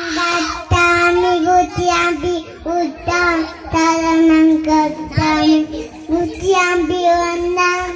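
A young boy's voice chanting into a microphone in the sing-song style of a Buddhist monk's recitation, holding long phrases on one nearly steady note with small dips and brief breath breaks.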